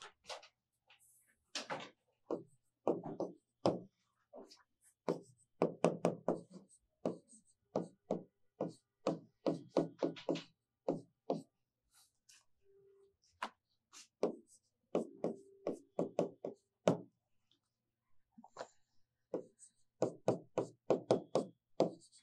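Chalk writing on a blackboard: irregular runs of sharp taps and knocks as the chalk strikes and scrapes the board, with a short lull about halfway through.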